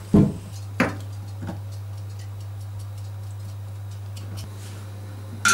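Pork knuckles being handled in a stainless-steel kitchen sink: a few dull thuds in the first second and a half, then scattered light ticks, and a sharp clink near the end, over a steady low hum.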